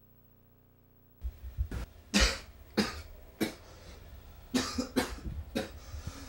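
A person coughing in a run of separate, harsh coughs, starting about a second in.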